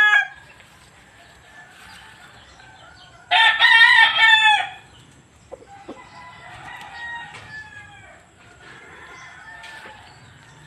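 Gamecock (fighting rooster) crowing: a loud crow of about a second and a half a few seconds in, after the tail end of another crow at the very start. Fainter chicken calls and clucks follow.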